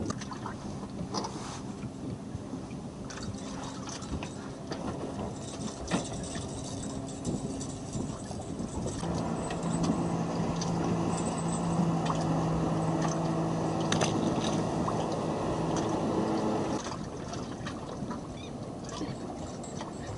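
A motorboat engine drones steadily for several seconds in the middle, starting and stopping abruptly. Around it is a background hiss with scattered clicks and knocks.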